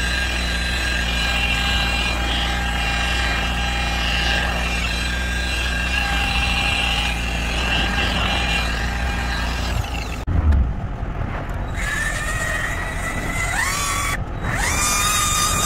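A rotary polisher running steadily against a plastic headlight lens, a constant motor whine over a low hum. About ten seconds in there is a short knock, and then a small cordless power tool spins up twice, its whine rising in pitch and then holding steady.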